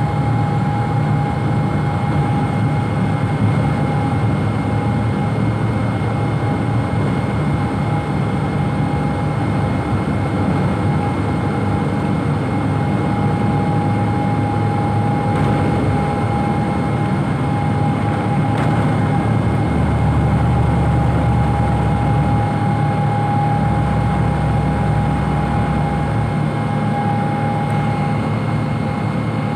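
Boeing 777-200 jet engines and cabin air heard from inside the cabin during taxi: a steady low drone with a constant whine over it, swelling slightly about two-thirds of the way through.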